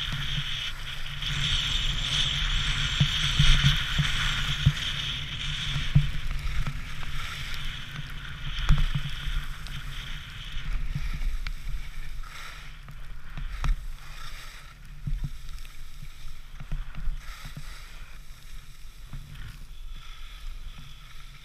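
Skis running down a snow trail, with the edges scraping the snow, wind buffeting the microphone and a few knocks. The hiss of the skis is strongest in the first half and fades as the skier slows near the end.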